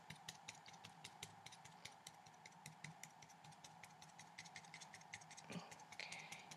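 Near silence with many faint, irregular small clicks, several a second, and a slight rustle near the end.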